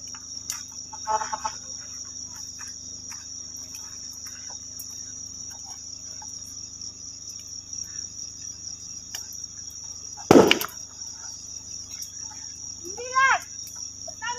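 Crickets trilling steadily in the night. A single loud thump comes about ten seconds in, and a brief voice is heard near the end.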